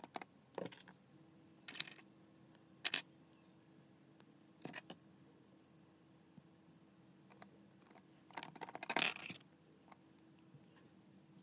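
Plastic Lego pieces being handled and pressed together: a few separate sharp clicks, then a louder run of clicking and rubbing about three-quarters of the way through.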